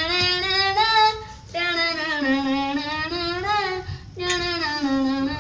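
A boy's high voice singing a Chhattisgarhi song, three long phrases of held, wavering notes split by short breaths.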